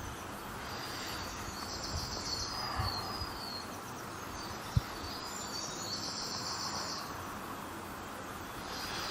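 Insects trilling in two high-pitched pulsing bursts, each lasting a second or two, over faint outdoor background noise. A single short knock comes about halfway through.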